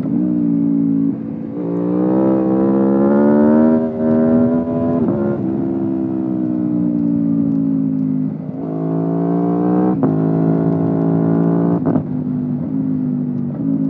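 Aprilia Tuono V4 Factory's V4 engine through an Akrapovic exhaust, heard onboard while riding. It revs up hard and shifts sharply about four seconds in, then eases off with a long falling note. It pulls again with two more quick upshifts near the end.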